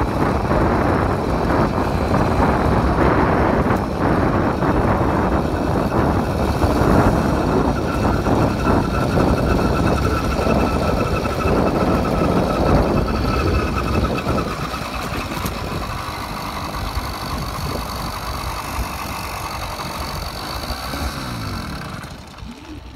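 Small 80cc motorized-bicycle engine running while riding, with wind rushing over the microphone. The sound gets quieter about two-thirds of the way through and drops again near the end as the bike slows.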